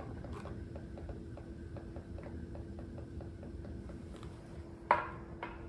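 Steady mechanical ticking, about five ticks a second, over a low steady hum. Near the end comes a sharp hard clack with a short ring, then a softer clack half a second later, as the acrylic menu stand is handled.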